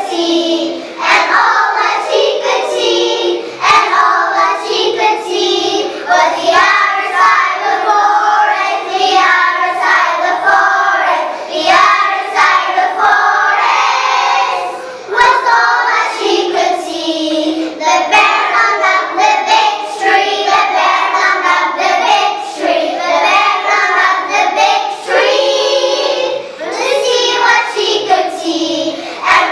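A choir of kindergarten children, about five to six years old, singing a song together in English.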